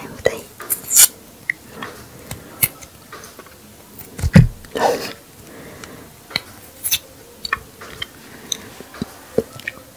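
Raw rabbit-ears (Opuntia) cactus pad crunching and snapping crisply, close up: scattered short crackles and clicks, with a louder dull thump about four seconds in.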